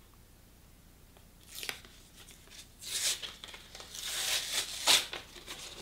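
Plastic film being peeled and torn away from paper packaging by hand: crinkly tearing and crackling that starts about a second and a half in and grows denser and louder from about three seconds.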